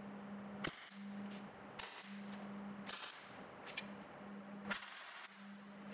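MIG welder laying a series of quick tack welds on steel tube: about five short bursts of arc crackle, the last one the longest.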